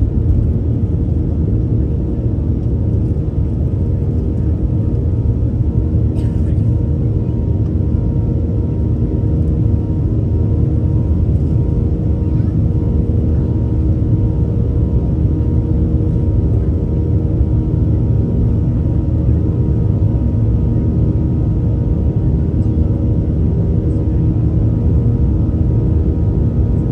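Boeing 737-800's CFM56 jet engines at takeoff thrust, heard inside the cabin over the wing: a loud, steady rumble with a faint steady drone, through liftoff and the initial climb.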